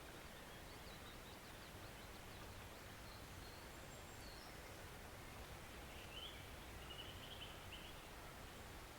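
Faint, steady rushing of a woodland stream. Small songbirds call over it: a quick run of high chirps early on, and a brighter twittering burst about six to seven seconds in.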